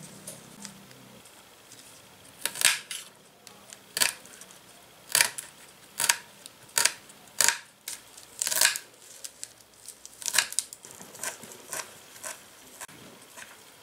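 Miniature cleaver chopping leafy greens on a small glass cutting board: sharp clicks of the blade striking the glass, about one a second, a few in quick pairs, lighter taps near the end.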